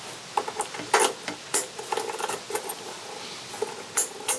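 Scattered light clicks and metallic clinks: keys jangling and plastic and metal parts knocking as a motorcycle ignition switch is handled by hand.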